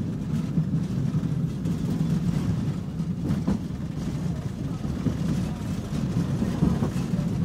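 Inside a moving tram: a steady low rumble of the tram running along its rails, with a few faint knocks about three and a half seconds in.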